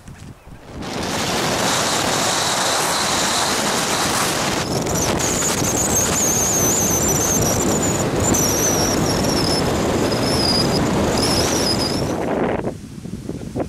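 Wind and road noise from a moving vehicle, rushing over the camera, with a high wavering tone joining in about five seconds in. The noise starts about a second in and drops away suddenly near the end.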